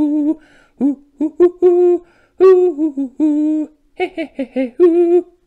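A man humming a sing-song tune in short phrases, some notes held and some gliding up and down.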